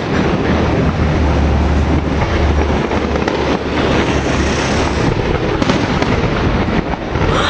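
Fireworks display going off in a dense, continuous run of bursts and crackle, with a heavy low rumble through the first few seconds and several sharper bangs later.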